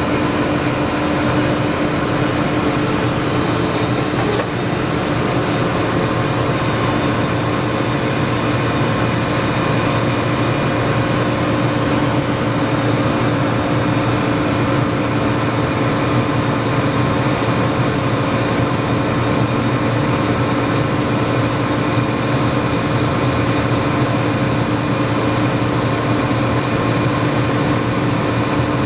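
Heller LFS 240 CNC plano milling machine running under power: a steady mechanical hum with several steady whining tones layered over it.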